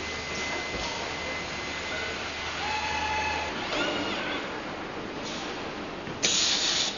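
Running noise of an automated CNC window-frame assembly press: a steady mechanical hiss and hum, with a low hum that stops about halfway through. A short, loud burst of hiss comes near the end.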